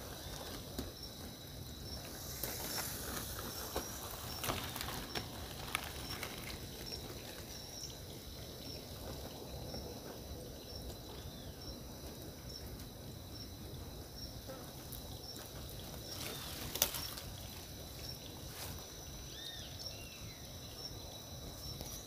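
Quiet outdoor ambience of insects: a steady high drone with a soft chirp repeating a little more than once a second, over a faint hiss. There are a few light clicks, and a few short high chirps near the end.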